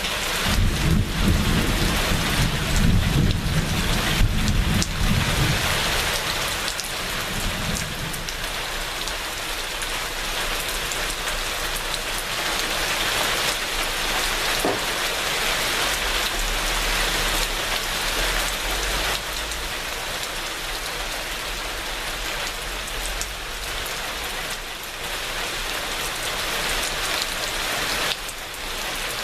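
Steady heavy rain falling and pattering on surfaces. A low rolling thunder rumble runs under it for the first several seconds and dies away about eight seconds in.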